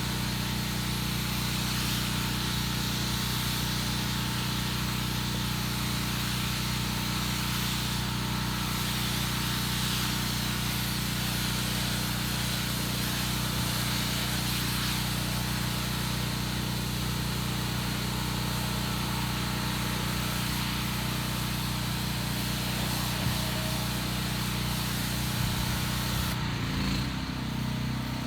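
Pressure washer engine running steadily while water sprays hard from the wand, rinsing house siding. Near the end the spray stops while the engine keeps running and its pitch shifts.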